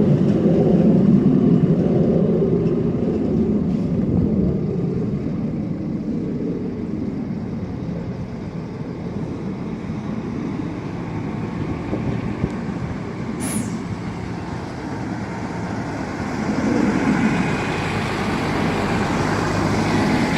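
Steady rumble of heavy road traffic, easing in the middle and swelling again near the end, with a single short high click about two-thirds of the way through.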